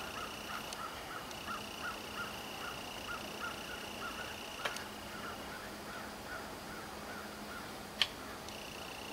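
A bird calling one short note over and over, about three times a second, stopping shortly before the end. A sharp click comes about halfway through, and a louder one near the end.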